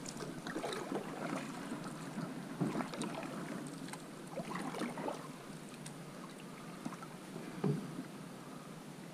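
Canoe paddles dipping and splashing in the river, with a few knocks on the aluminium canoe hull, the sharpest about a third of the way in and again near the end.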